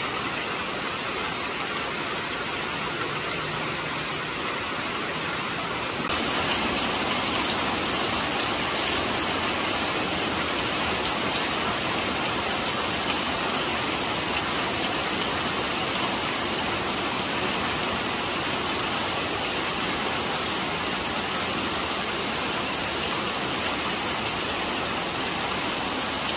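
Heavy rain pouring down: a steady hiss that gets louder and brighter about six seconds in.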